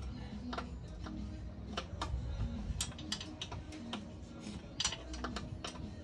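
A dozen or so sharp, irregular metallic clicks from a hand wrench working on the outboard's lower-unit bolts, bunched toward the end, over steady background music.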